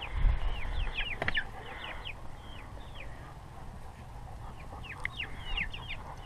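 Young Rhode Island Red chickens peeping, a steady scatter of short, high chirps from the huddled flock. A low rumble sits under them in the first second or so.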